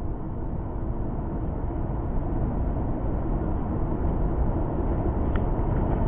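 Surf washing against sea rocks with wind on the microphone: a steady, deep rush of noise.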